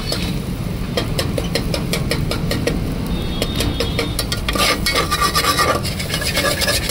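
Metal spatula scraping and tapping against an aluminium pot while stirring scrambled egg masala, about four strokes a second, heavier between four and six seconds in, over a steady low hum.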